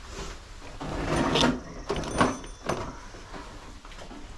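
Handling noise: a rubbing, scraping sound swells about a second in, followed by a few sharp clicks and knocks as objects are picked up and set down.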